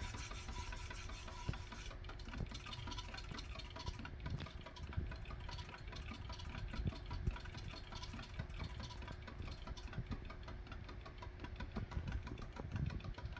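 Homemade pulse motor with a 3D-printed slotted rotor running: a rapid, even ticking from the pulsed drive, over a faint steady hum.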